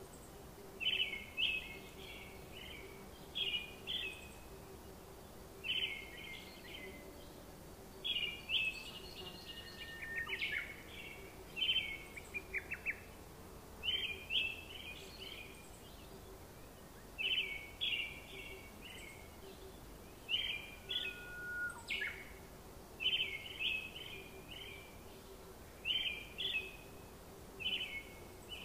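Small birds chirping in short bursts of rapid notes, one burst every second or two, over a faint steady hum.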